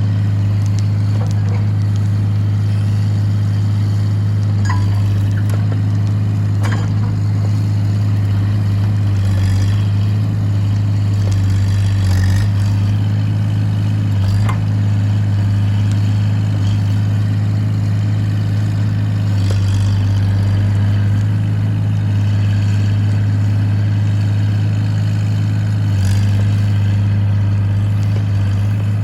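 Excavator's diesel engine running steadily under work, with a few faint knocks and clanks.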